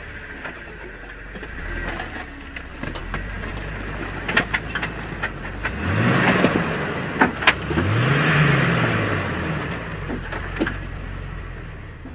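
Jeep Wrangler Rubicon engine running at low revs while rock crawling, revved up twice, about halfway through and again a couple of seconds later, each time rising and falling back. Sharp clicks and knocks come and go throughout.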